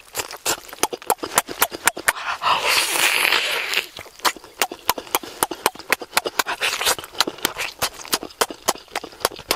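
Close-miked mouth sounds of eating roast chicken by hand: rapid wet smacking and chewing, several sharp clicks a second, with a longer breathy hiss about two and a half seconds in.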